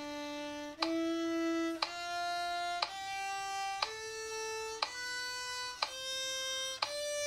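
Violin playing a C major scale slowly upward, one note a second, two notes to each bow stroke. Each note is held evenly, with a short sharp attack at every note change.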